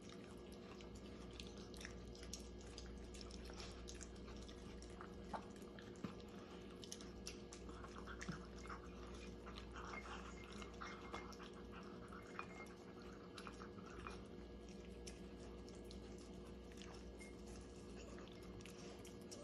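Two Yorkshire terriers eating from bowls: faint chewing and scattered small clicks of food against the bowls, with a couple of sharper clicks about five and six seconds in. A steady low hum runs underneath.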